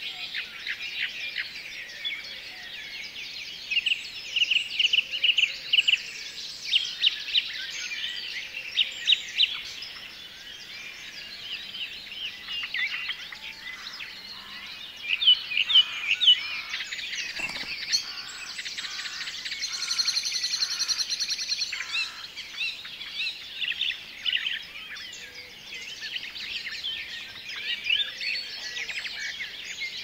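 Several songbirds singing at once: overlapping chirps, whistles and short phrases, with a fast trill about two-thirds of the way in.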